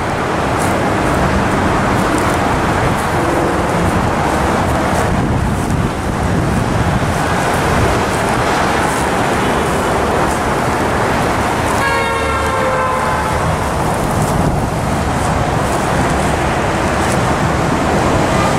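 Steady road traffic noise from passing cars on a busy multi-lane road. About twelve seconds in, a brief pitched tone sounds over it, like a car horn toot.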